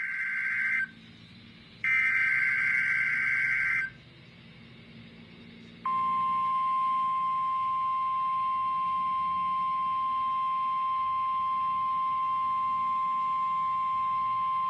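NOAA Weather Radio SAME alert header: a two-tone warbling data burst ends about a second in and a second identical burst follows. Then the 1050 Hz weather radio alert tone sounds as one steady beep for about nine seconds, marking a required weekly test of the tone and SAME alert systems.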